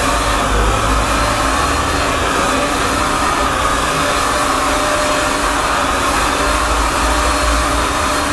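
A handheld electric paint spray gun running steadily, its motor whining and its nozzle hissing as it sprays paint onto a car wheel. The whine wavers slightly in pitch throughout.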